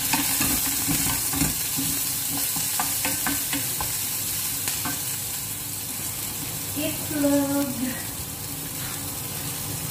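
Sliced onions sizzling steadily in hot oil in a nonstick pan, stirred with a wooden spatula that scrapes and taps against the pan for the first few seconds.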